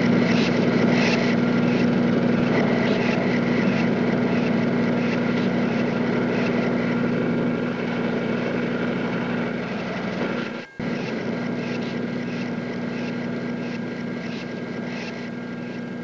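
Steady vehicle engine drone with a strong low hum, slowly fading, cut off briefly about ten and a half seconds in.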